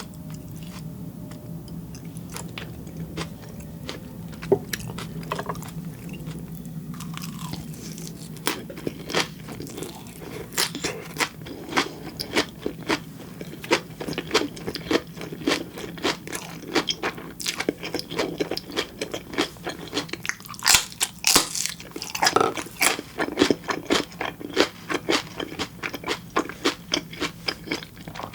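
Close-miked eating: chewing a mouthful of sashimi and black flying fish roe, with crisp popping and crunching clicks. The clicks are sparse at first and come thick and fast from about seven seconds in.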